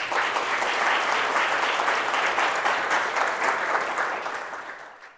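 An audience applauding, a dense steady clapping that tails off near the end.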